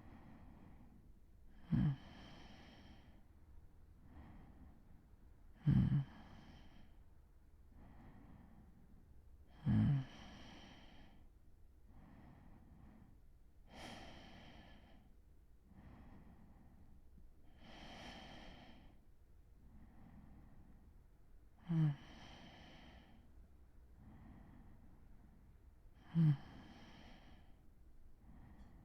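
A man breathing slowly and deeply in light sleep, one breath about every four seconds. Most breaths open with a short, low snore, the loudest sound each time, followed by about a second of breath noise, with softer breaths between.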